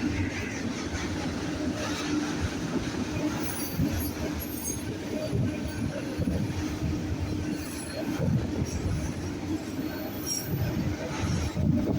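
A BNSF autorack freight train's cars rolling past on the rails, a steady rumble of wheels with short high wheel squeals now and then.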